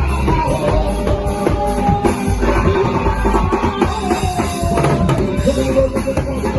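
A band playing music with a drum-kit beat, a heavy bass line and a melody over it.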